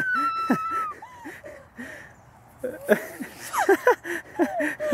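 A person's long high-pitched squeal breaks off about a second in, followed by scattered short laughs and yelps from someone spinning on a playground spinner.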